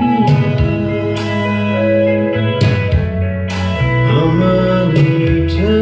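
Music with guitar and singing, played back from a cassette tape on a Pioneer CT-W616DR deck.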